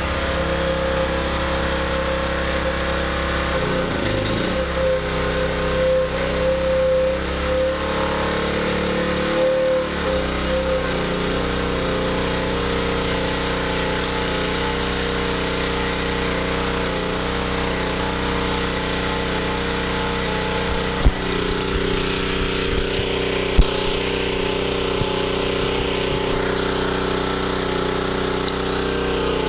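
Small portable generator's engine running steadily under a 1000-watt load of halogen work lights. Its note shifts about ten seconds in, and two sharp clicks sound about two-thirds of the way through.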